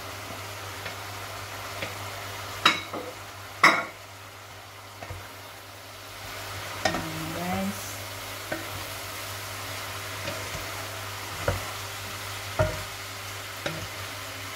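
Stir-fry of pork, vegetables and fusilli pasta sizzling in a frying pan while a wooden spatula stirs it, with two loud knocks about three seconds in and lighter knocks of the spatula against the pan later on.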